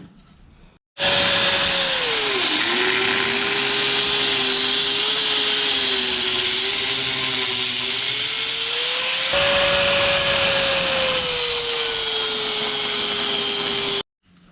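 High-speed power tool running with a steady high whine and heavy hiss, its pitch dipping as it bites in under load, while freeing the VW dune buggy's rear cage. It starts abruptly about a second in, jumps slightly in pitch about nine seconds in, and stops abruptly near the end.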